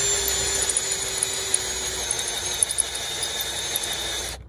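Cordless drill turning a twist bit through steel, with a steady motor whine over the scrape and crackle of the bit cutting. The bit is running dry, with no cutting lube, and is hot enough to smoke. The motor note sags slightly about halfway, and the drill stops just before the end.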